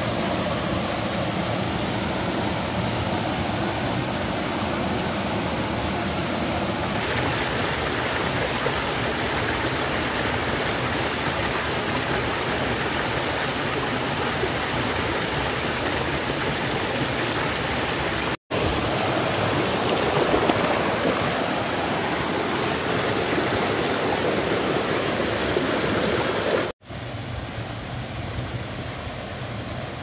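Mountain stream water rushing and splashing steadily over rocks. The sound breaks off for an instant twice and is somewhat quieter after the second break, near the end.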